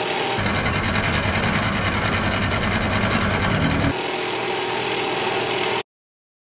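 Bench grinder running with a stainless steel washer pressed against the spinning wheel, grinding the metal. Its tone changes twice, and it cuts off suddenly near the end.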